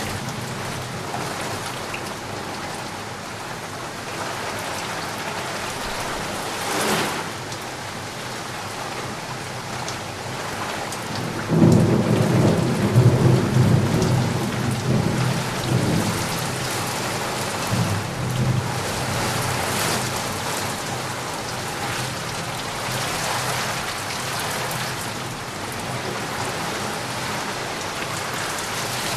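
Steady rain falling, with a low rumble of thunder about twelve seconds in that lasts a few seconds and fades back into the rain.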